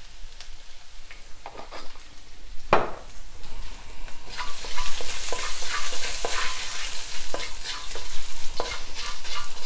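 Garlic and spring onion sizzling in oil in a wok, with a wooden spatula scraping and tapping against the pan. There is one sharp knock about 3 s in, and the sizzle grows much louder about halfway through.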